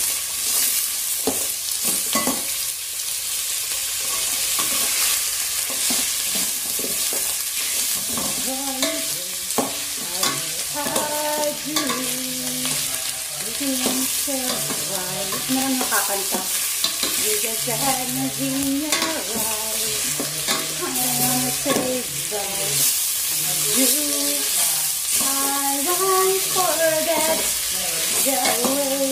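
Pork pieces frying in a stainless steel pot with a steady sizzle, while a metal spoon stirs and scrapes against the pot with scattered clicks. From about nine seconds in, a voice can be heard in the background.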